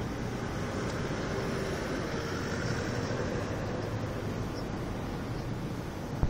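Steady road traffic noise, a constant low rumble and hiss of passing vehicles, with a brief knock near the end.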